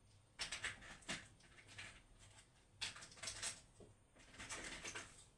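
Faint scattered rustles and light clicks in three short clusters, like small objects being moved about.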